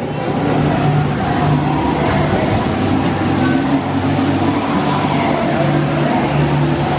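Steady rush of falling water with a low hum underneath, from the indoor waterfalls of a dark boat ride.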